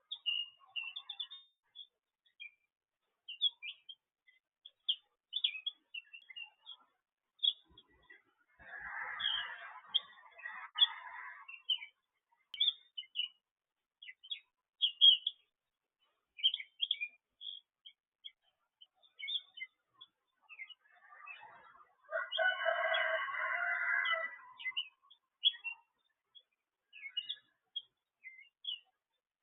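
Songbirds chirping, many short high tweets one after another, with two longer, lower calls standing out, one about nine seconds in and a louder one about twenty-two seconds in.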